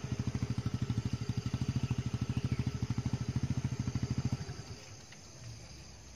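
Small motorcycle engine running at a steady idle, a fast even low beat, which dies away about four and a half seconds in.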